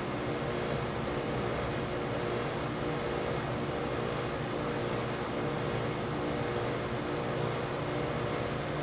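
Amana 5P2MY 5,000 BTU air conditioner running steadily: fan blowing with a constant hum from its rotary compressor. The compressor is drawing only about 2.6 amps and has not started pumping yet, so head pressure is not building.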